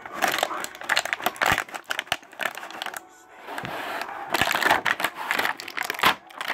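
Clear plastic blister packaging crinkling and crackling in irregular bursts as a toy figure is worked out of its tray and the box is handled, with a short pause about three seconds in.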